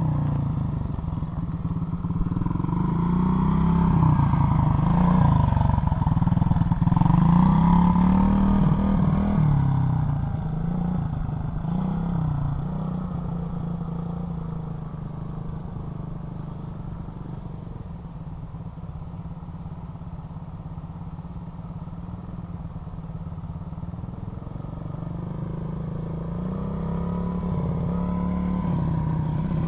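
SSR Motorsports 110cc pit bike's single-cylinder four-stroke engine, its pitch rising and falling as the rider opens and closes the throttle. It is loudest in the first ten seconds, fades as the bike rides off across the lot and grows louder again as it comes back near the end.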